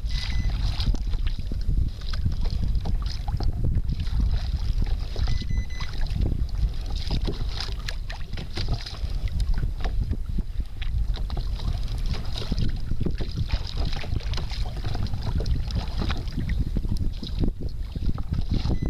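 Steady wind rumble on the microphone of a small kayak at sea, with frequent small knocks and splashes of choppy water against the hull.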